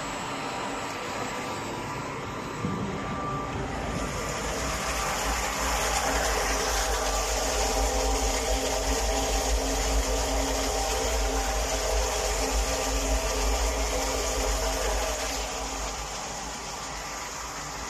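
Vacuum emulsifying mixer running steadily, with a single knock about three seconds in. From about four seconds a loud rushing of water pouring into the stainless steel tank through an inlet pipe joins it, easing off near the end.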